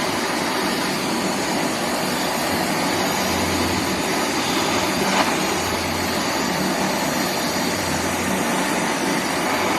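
Butane torch flame burning with a steady rushing hiss while heating an aluminium rod and workpieces; the flame is not intense enough to liquefy the rod.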